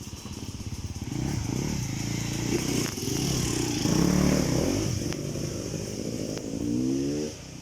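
Motorcycles riding past on a dirt forest track, their engines swelling to a peak about four seconds in and then easing off. Near the end an engine revs up, its note rising.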